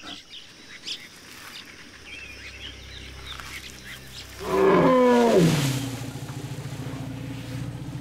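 An elephant's loud call about halfway through, sliding steeply down in pitch, followed by a low, pulsing rumble.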